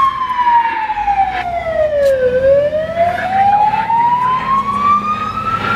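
London Fire Brigade fire engine siren sounding a slow wail. The pitch falls steadily to its lowest about two seconds in, then climbs slowly back up, over a low vehicle rumble.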